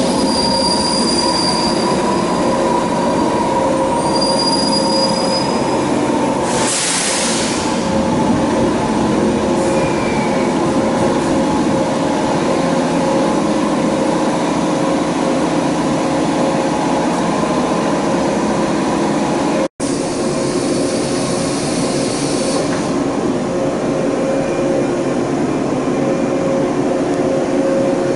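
A JR 485-series electric train creeps into a station platform and stops, with short high-pitched squeals from its wheels and brakes in the first few seconds and a brief rush of noise about seven seconds in. It then stands with a steady hum from its equipment, and a short hiss comes about twenty seconds in.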